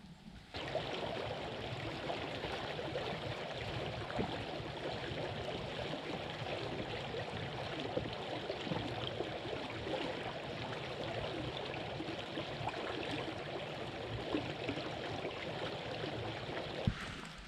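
Steady rush of running water, like a small stream. It starts abruptly about half a second in and cuts off near the end.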